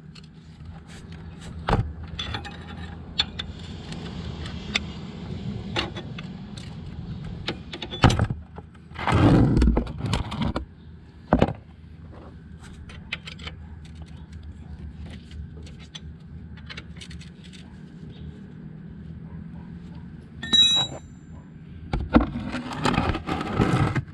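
Wrench clinking and scraping on the primary chaincase drain plug of a 1971 Harley-Davidson Ironhead Sportster as it is loosened: a run of sharp metal clicks and clinks, with two longer scraping stretches about nine and twenty-two seconds in, over a steady low hum.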